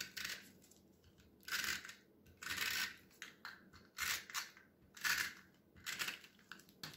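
Snail tape-runner adhesive being run along the back of a cardstock panel in about six short strokes.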